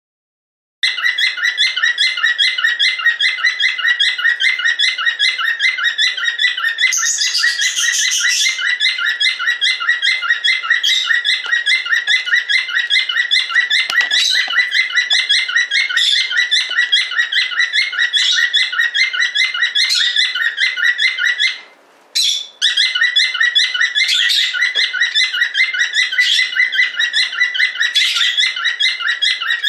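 Cockatiel calling loudly in a fast run of repeated chirping whistles on one steady pitch. The calls break off briefly once, about two thirds of the way through, then resume.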